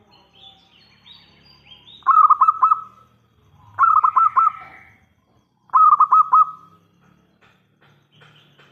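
Zebra dove (perkutut) cooing: three short phrases of quick, pulsed coos about two seconds apart. Fainter, higher chirps come just before the first phrase.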